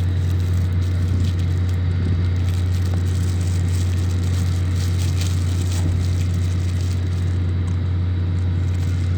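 A steady, unbroken low hum from running machinery, with faint rustles and clicks over it.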